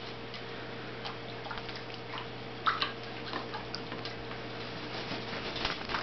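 African grey parrot bathing in a shallow dish of water: small splashes, drips and taps, with a quick run of wet wing-flapping near the end.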